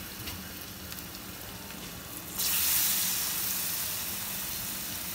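Gram-flour-battered bread pakoras frying in hot oil: a steady sizzle that jumps sharply louder about two and a half seconds in as a fresh battered piece goes into the oil, then slowly eases.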